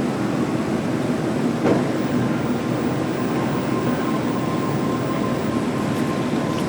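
Airport ambience: a steady, low rumbling wash of machinery and traffic noise. A single brief knock comes about a second and a half in, and a faint, high, steady tone comes in after about two and a half seconds.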